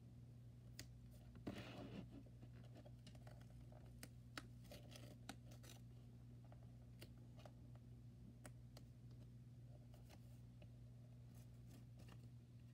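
Faint paper handling: small rustles and light taps as paper heart cut-outs are picked up and pressed onto a notebook cover, with one brief louder rustle about one and a half seconds in. A steady low hum runs underneath.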